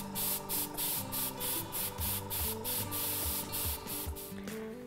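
Airbrush spraying liquid watercolour paint: a hiss of air and paint coming in short pulses, a few a second, as the trigger is worked.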